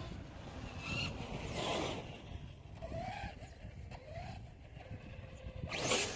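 Electric 1/8-scale RC truggy with a 2000kv brushless motor on 6S being driven, its motor whine briefly rising and falling amid tyre noise on the ground, with louder bursts about two seconds in and near the end.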